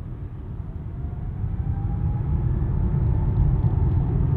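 Jet airliner's engines rumbling, growing steadily louder over the first three seconds, with a faint whine above the rumble that rises a little in pitch.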